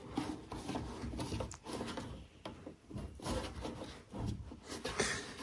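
Felt lining pieces being pressed by hand into a steel tool box tray: faint rubbing with small scattered taps and clicks against the metal.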